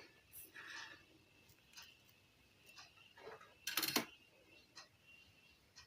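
Faint, scattered small clicks and taps of tools handling a car stereo's circuit board, with one louder click about four seconds in.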